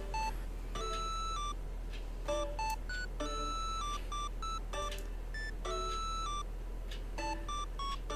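Background music: a simple electronic melody of short, beep-like synth notes.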